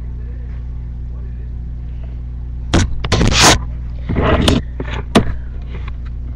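Steady low hum, broken about halfway through by a few loud, brief noises: two bursts of noise a second apart and then a sharp click.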